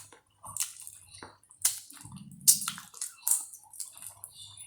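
Close wet eating sounds of someone chewing and sucking on chicken feet cooked in soy sauce, with irregular sharp smacks and crunches.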